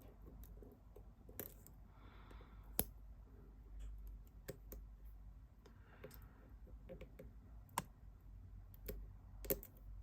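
Small irregular metallic clicks and ticks of a lock pick working the pin stack inside a Master Lock 608 shutter lock, with a few sharper clicks, the loudest about three seconds in and two more near the end.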